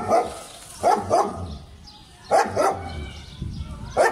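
German shepherd barking, loud barks in quick pairs: one at the start, then pairs about a second in and about two and a half seconds in, and another at the very end.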